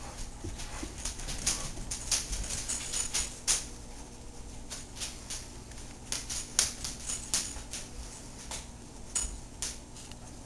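Irregular light metallic clicks and rattles, with a faint jingle, as kittens scramble about on a blanket clipped inside a wire crate.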